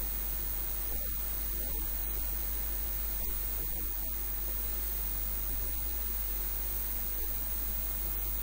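Steady electrical hum and hiss: an even, unchanging noise with a constant low mains hum beneath it and no clear speech.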